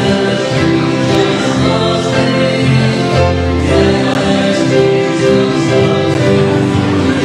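Church worship band performing a gospel song: men singing into microphones over strummed acoustic guitars, with a low bass note held about three seconds in.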